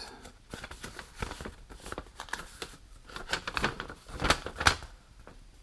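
Paper and cardboard packaging rustling and clicking as an instruction sheet is taken out of a small product box, with two sharper snaps a little after four seconds in.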